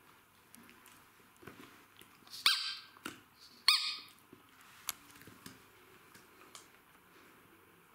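Red rubber squeaky ball squeezed by hand, giving two short, loud squeaks a little over a second apart, with faint soft clicks and rustles around them.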